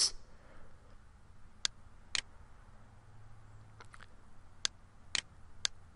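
Computer mouse button clicking, about six or seven short, sharp clicks spaced roughly half a second apart, two of them close together like a double-click near the middle.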